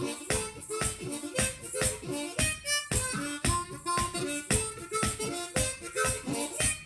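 Acoustic blues harmonica played solo: a steady, driving rhythm of sharp breathy chord hits with short held notes in between.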